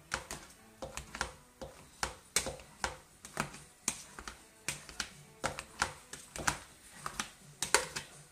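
Boiled potatoes being mashed by hand in a stainless steel pot: the metal masher knocks against the pot's bottom and sides in quick, irregular clicks, about three a second, with soft squelches of the potato between.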